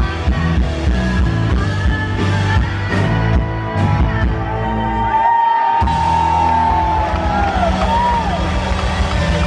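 Live rock band playing amplified, with electric guitars, bass, drums and singing, and whoops from the crowd. About five seconds in, the bass and drums drop out for a moment while a long high note is held and then bends down.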